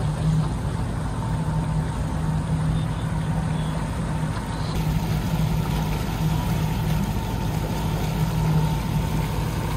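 A boat's engine running steadily, a constant low hum, with a faint higher whine and rushing wind and water noise.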